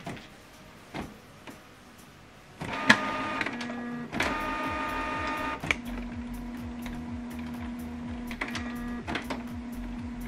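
Canon PIXMA MG3650 inkjet printer starting up for a print job. About two and a half seconds in, a click sets its motors whirring with several tones at once. Then it settles into a steady low hum with light ticks.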